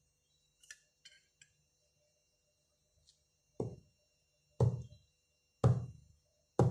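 A glass of yogurt topped with crushed biscuits knocked down on a cloth-covered table four times, about once a second, each knock louder than the last. A few light clicks of a metal spoon come first.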